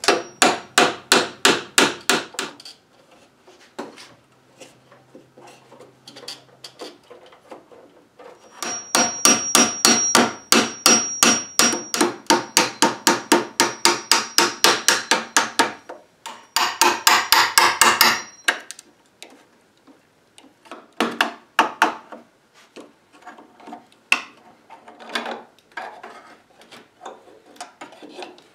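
Rapid light hammer taps, about four to five a second, on a steel scraper blade being driven into the joint behind a cupboard's crown molding to pry the molding loose. The tapping comes in runs with pauses between them. The longest run lasts from about eight to sixteen seconds in, and scattered single taps follow near the end.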